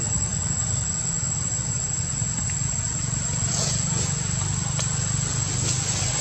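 Insects keep up one steady high-pitched whine over a steady low rumble, with a few faint clicks in the second half.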